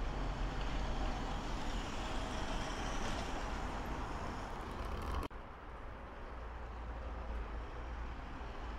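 Märklin three-rail model train running on the layout: a steady whir and rumble of the wheels on the track. About five seconds in it changes abruptly to a duller, slightly quieter run.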